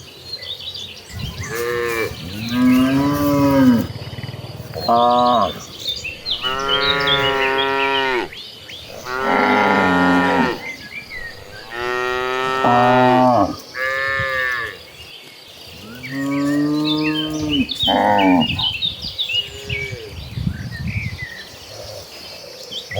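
A herd of cattle mooing, a string of long calls one after another with short gaps, each rising and then falling in pitch.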